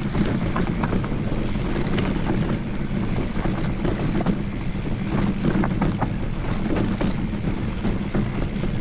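Mountain bike riding fast down a dirt forest trail: a steady tyre and wind rumble on the microphone, with a constant run of small clicks and rattles from the bike over the ground.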